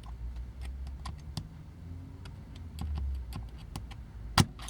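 Irregular light clicks and taps of a small hand tool working at the plastic and metal parts of a vintage toy robot being disassembled, over low handling rumble, with one sharp, louder click near the end.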